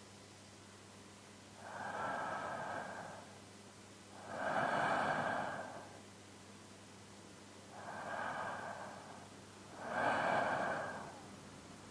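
A man's slow, even sleeping breaths, close to a binaural microphone: four soft breaths, in and out, each swelling and fading over about a second and a half.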